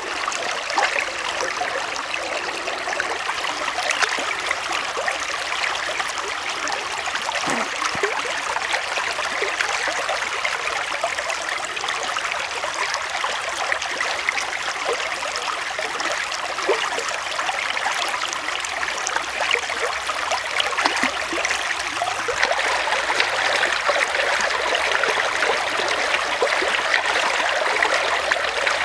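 Shallow stream running over rocks: a steady babble of flowing water.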